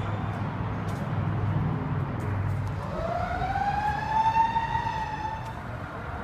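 A single siren wail: one tone rises over about a second, starting about three seconds in, then slowly falls away and fades. A low steady rumble is heard before it.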